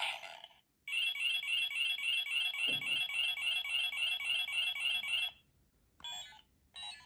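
Kamen Rider Orga CS transformation belt toy playing its electronic sound effects. After a short electronic chime, a repeating electronic standby loop pulses about three times a second for some four seconds, with a soft thud partway through. Short electronic beeps come near the end.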